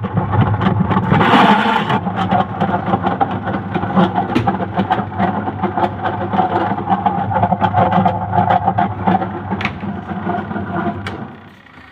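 Washing machine motor and agitator gearbox running, a steady hum with a fast ticking rattle; the machine turns slowly and weakly while making this noise, which the repairer takes for a failing gearbox. The sound dies down near the end.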